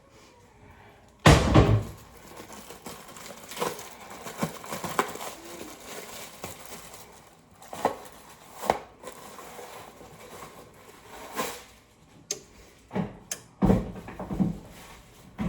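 Washing hands at a kitchen sink: a loud knock about a second in, then a few seconds of tap water running, followed by scattered clicks, taps and rustling as things are handled.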